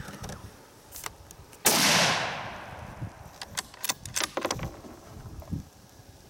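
A single shot from a Howa 1500 bolt-action rifle in .223, sharp and loud, about two seconds in, its echo fading over about a second. A couple of seconds later come several quick metallic clicks, the bolt being worked to eject the case and chamber the next round.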